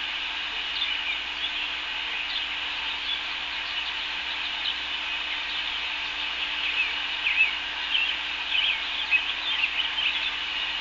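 Birds chirping and calling, more busily in the last few seconds, over a steady hiss and a faint low hum.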